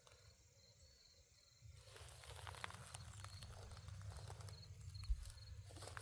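Near silence, then from about two seconds in a faint low rumble with soft footsteps.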